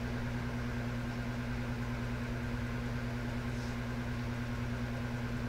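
Room tone: a steady low hum with no change throughout.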